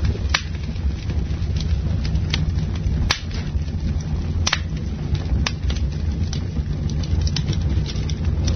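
Wood campfire burning: steady low flame noise with irregular sharp crackles and pops from the burning wood, a few of them louder than the rest.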